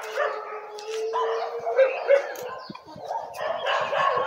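Dogs barking, with two loud barks about two seconds in.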